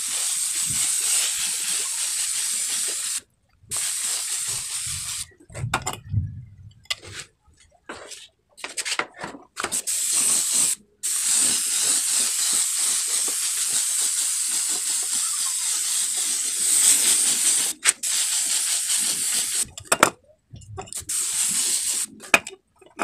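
Compressed-air paint spray gun hissing as it lays down the final coat of colour, starting and stopping in several short bursts with brief breaks between long steady passes.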